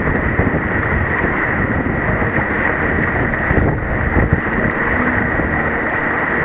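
Steady wind buffeting the microphone of a camera mounted on a sea kayak, over the wash of choppy sea around the boat.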